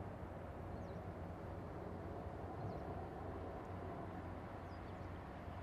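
Boeing 787-8 jetliner's two Rolls-Royce Trent 1000 turbofans at climb power just after take-off, heard from a distance as a steady low drone.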